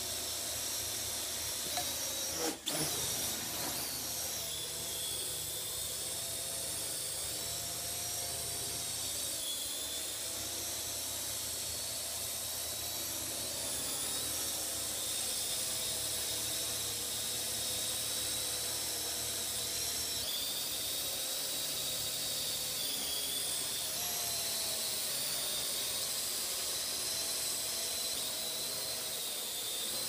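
Parrot quadcopter drone's geared electric motors and propellers whining in flight, with several high pitches wavering up and down together as the throttle changes; the motors are fitted with new high-speed gears. A single knock about two and a half seconds in.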